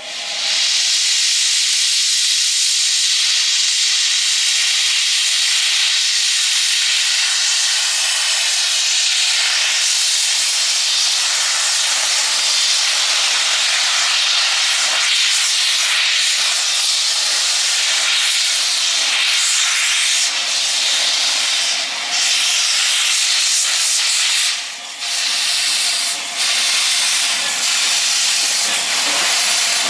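Loud, steady hiss of steam from the open cylinder drain cocks of Southern Railway 'Battle of Britain' class steam locomotive No. 34072 as it moves off, with a few brief dips late on.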